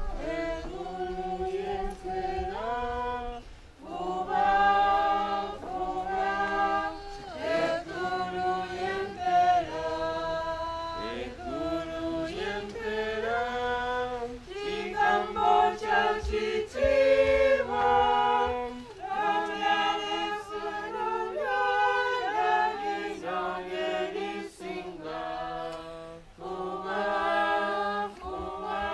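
A choir singing unaccompanied, several voices holding notes together and moving in phrases, with a short break about four seconds in.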